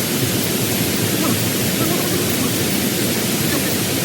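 Steady, loud rushing noise with no clear pitch or distinct impacts.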